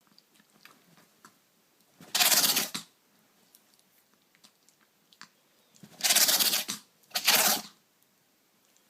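Chihuahua sneezing three times in short, forceful bursts: once about two seconds in, then twice in quick succession near the end.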